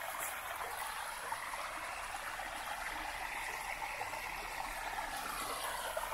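A small forest stream babbling, a steady rush of flowing water.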